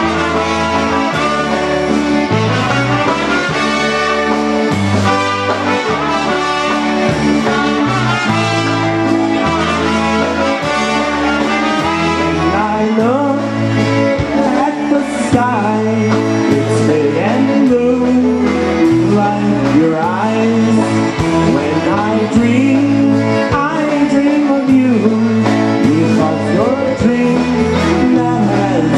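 Live polka band playing a waltz, a bass line stepping under the melody.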